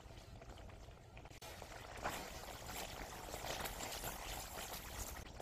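Silicone spatula stirring and scraping thick pea paste around a pan as it cooks down, the wet paste squelching with many small pops and crackles. It gets louder after about a second and a half.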